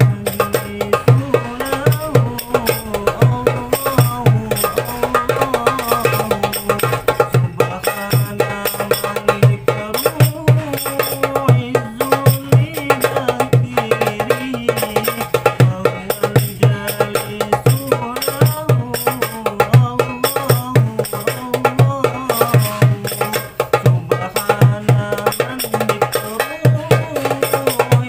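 Hadroh percussion playing a steady rhythm: a cast-aluminium 8¾-inch darbuka's deep and sharp hand strokes with rebana frame drums, under a sung sholawat melody.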